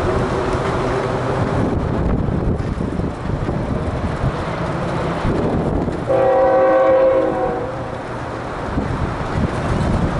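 Steady wind and road rumble while moving along, cut through about six seconds in by a multi-note horn chord held for nearly two seconds; the tail of an earlier blast from the same horn fades out right at the start.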